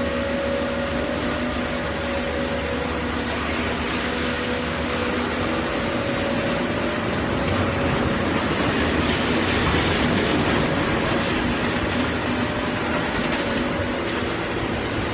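Vacuum membrane press's work table rolling out of the press on its rails, a steady mechanical running noise with a low hum, growing louder partway through.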